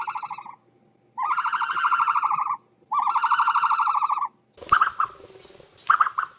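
A buzzy, rapidly pulsing call repeated three times, each lasting about a second and a half, then two short squawks near the end.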